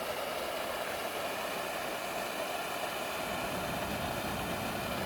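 Waterfall rushing steadily in full flow after rain, an even hiss of falling water.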